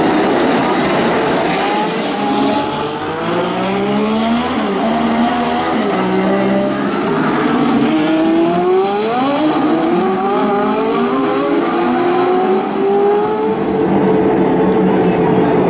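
Several historic racing cars' engines passing. Their overlapping notes rise as the cars accelerate through the gears and drop back as they lift and shift down.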